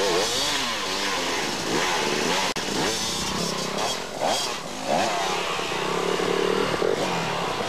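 Enduro motorcycle engines revving hard, their pitch rising and falling again and again as they labour up a very steep hill climb.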